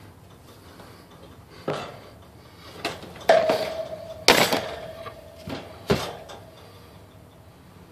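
Several sharp metallic clanks and knocks. One, about three and a half seconds in, leaves a clear ringing tone that dies away over about four seconds. The loudest clank comes just after four seconds.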